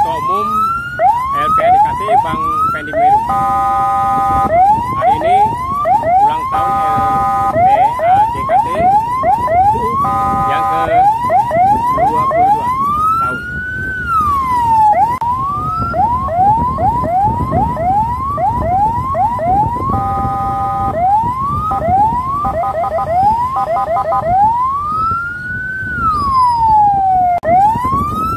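Electronic vehicle siren switching between modes: quick rising yelp sweeps, about two a second; several blasts of a steady multi-note horn tone; and slower rise-and-fall wails near the middle and near the end. Road and engine rumble runs underneath.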